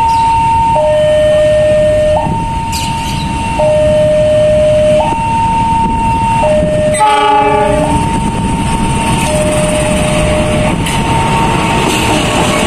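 Level-crossing warning alarm sounding two alternating tones, low then high, each about a second and a half, over the rumble of an approaching KAI diesel locomotive. The locomotive's horn blows once about seven seconds in, a chord lasting about a second.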